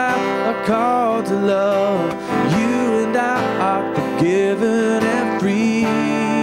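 Contemporary worship band playing a song, led by strummed acoustic guitar, with a melody line that slides between notes above steady sustained chords.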